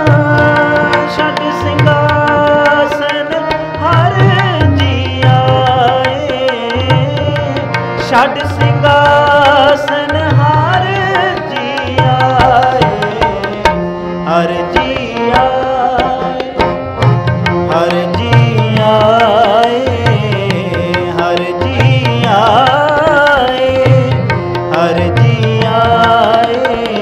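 Sikh devotional kirtan: a harmonium holds the melody while a tabla keeps a steady rhythm with deep bass-drum strokes, and a voice glides over the tune in places.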